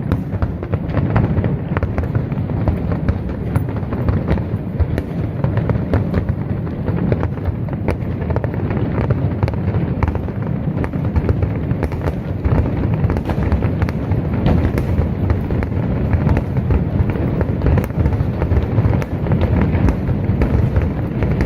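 Fireworks display: a dense, unbroken barrage of bangs and crackles over a steady low rumble.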